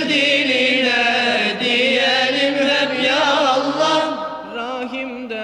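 Voices chanting an ilahi, a Turkish Sufi devotional hymn, holding long wavering, melismatic notes without clear words. The singing drops to a softer level about four seconds in.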